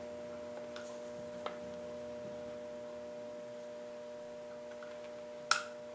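Steady electrical hum of several fixed tones, with faint small clicks of metal pistol parts being handled. About five and a half seconds in there is one sharp click as the trigger pivot pin is worked through the Smith & Wesson SD frame and slide lock lever.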